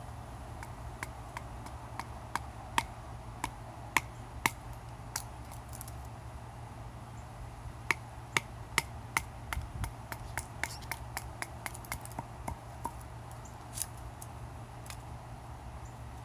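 Light batoning with a folding knife: a wooden baton knocking on the blade's spine to drive it into wood, in sharp, irregular knocks. One run of knocks comes in the first five seconds and a denser run of quicker, lighter taps follows after a pause of about three seconds.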